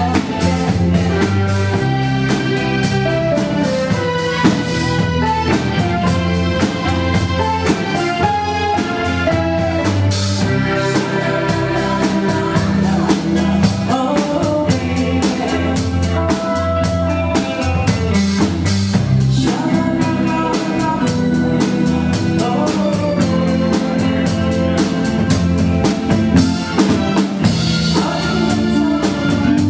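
Rock-and-pop cover band playing a steady, upbeat groove: drum kit with snare and bass drum, bass line and melodic instruments.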